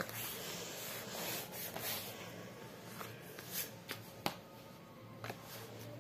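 Hands rubbing and pressing on a paper notebook on a tabletop, then a few light knocks as small colour bottles are picked up and handled.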